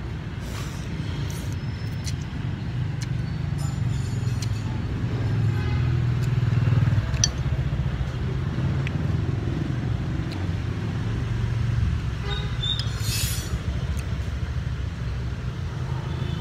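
Street traffic running past: a steady low rumble of passing engines that swells and fades, with a few light clicks and a brief hiss about thirteen seconds in.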